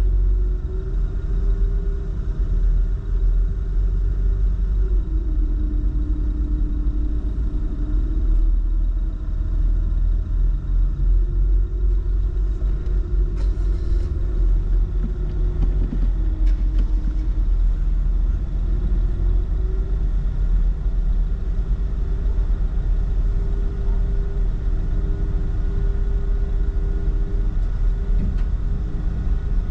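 Steady low engine rumble with a droning tone that steps up and down in pitch every few seconds.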